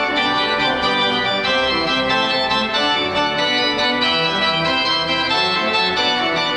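Church pipe organ playing polyphonic music, several lines of notes moving at once at a steady loudness.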